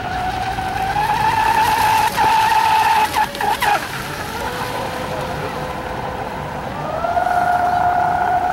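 Radio-controlled catamaran speedboat's motor whining at speed, with a steady high pitch. It cuts out in three quick dropouts about three seconds in, drops to a lower pitch, and climbs back up near the end.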